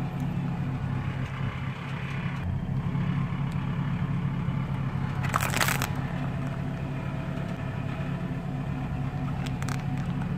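Vehicle engine idling steadily while a big off-road truck tyre rolls over small plastic gel tubes on concrete. About halfway through comes a half-second crackling crunch as the tubes are crushed and burst, with a few faint clicks near the end.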